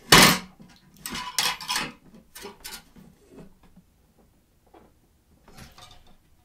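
Fork scraping and knocking against a disposable divided plate as the plate is handled, in short noisy bursts: a loud one at the start, a longer run about a second in, and smaller ones later.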